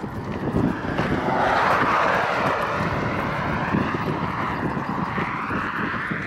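A droning, motor-like sound that swells about a second in and wavers up and down in pitch. Under it are irregular thuds of running footsteps.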